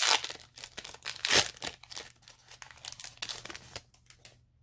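Foil wrapper of a Pokémon trading card booster pack crinkling and tearing as it is opened, with two louder rips, one at the start and one a little over a second in.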